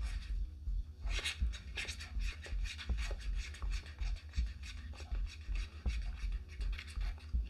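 A stir stick scraping and tapping against the sides of a mixing cup of liquid resin, in short irregular strokes, a few a second.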